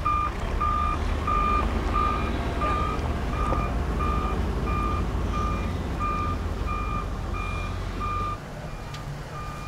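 Back-up alarm on a heavy tractor-loader beeping steadily, a little under two beeps a second, over the low rumble of its engine. The engine rumble drops away about eight seconds in while the beeping goes on.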